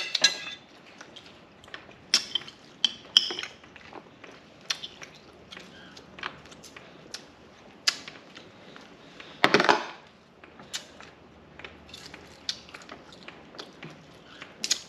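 Scattered small clicks and crackles of a boiled duck egg's shell being picked and peeled by hand, mixed with eating sounds; one louder, longer rustling noise about nine and a half seconds in.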